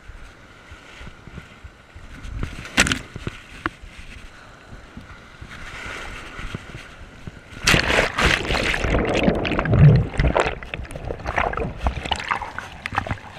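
Ocean surf breaking and washing over a GoPro action camera held at the waterline. A sharp splash comes about three seconds in, then a loud rush of churning water for a few seconds from about eight seconds in as a wave swamps the camera, then scattered splashes.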